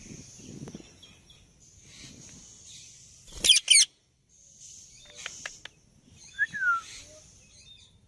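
Indian ringneck parakeets calling: two loud, harsh screeches about three and a half seconds in, then a few short clicks and a brief falling whistle.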